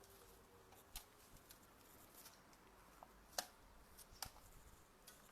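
Near silence with three faint clicks or taps spread through it, from small objects being handled on a work table.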